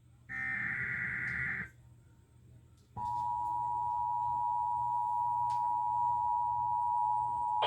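Emergency Alert System alert starting: a burst of about a second and a half of buzzy digital header tones, then after a short gap the steady two-tone EAS attention signal begins about three seconds in and holds. It marks the start of a broadcast emergency warning.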